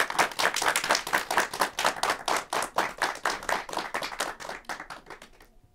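A small group of people clapping in applause, the claps thinning out and dying away about five seconds in.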